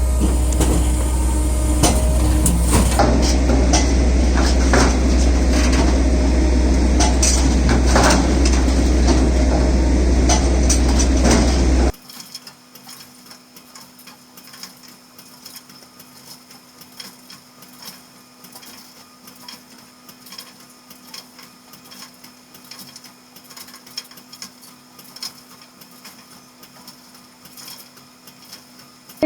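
Firewood processor with a hydraulic splitter running: a steady low drone with frequent knocks and clatter. About halfway through the sound drops sharply to a faint steady hum with light clicks.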